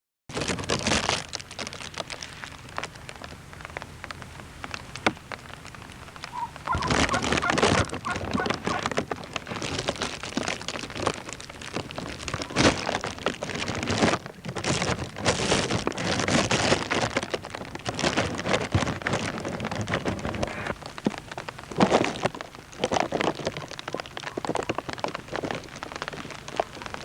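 Rain falling close to the microphone, a steady hiss that swells louder in irregular spells.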